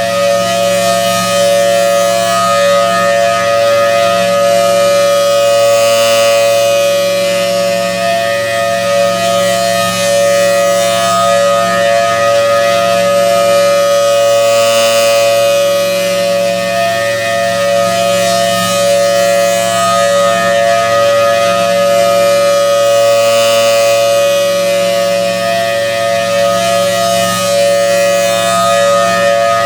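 Federal Signal Thunderbolt 1000T rotating warning siren, driven by its supercharger blower, holding the steady tone of a full alert. The held tone swells and fades about every eight to nine seconds as the rotating head sweeps past.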